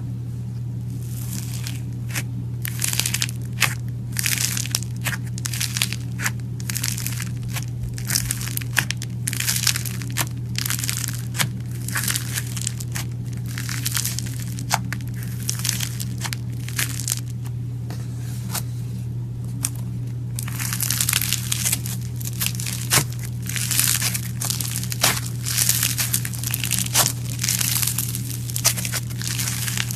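Slime being pressed and squeezed so its trapped air bubbles pop in quick, irregular crackles and snaps, growing busier in the last third. A steady low hum runs underneath.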